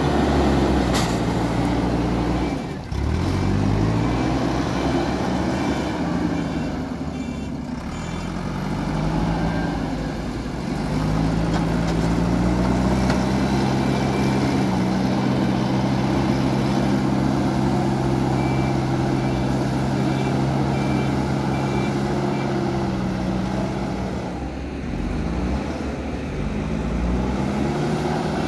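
JCB 3DX Super backhoe loader's diesel engine working under load as its front bucket pushes earth. The engine note rises and falls several times as the throttle changes, and holds steady for a long stretch in the middle.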